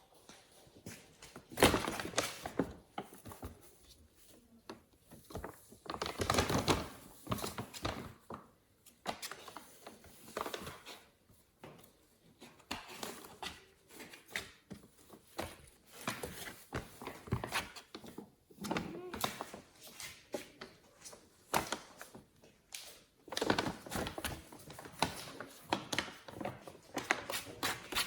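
A rustling bag crinkling in irregular bursts as kittens paw at and pounce on it, with soft knocks among the rustles.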